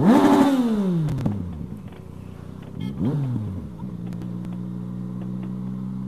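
Motorcycle engine snapping up in revs under a hard throttle opening, then the pitch falling away over about a second and a half. A second, shorter rise and fall comes about three seconds in, and the engine then settles into a steady cruise. The rider says he opened the throttle in third gear and the rear wheel stepped out.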